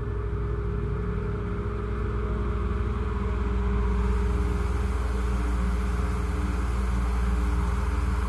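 Ambient background music: a low, sustained drone with held tones that swells slightly about three seconds in.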